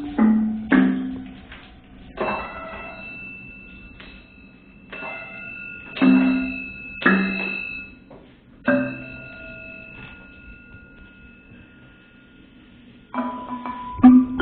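Sparse experimental percussion: single strikes a second or more apart, several leaving bell-like metallic tones ringing for seconds, then a quicker run of strikes near the end.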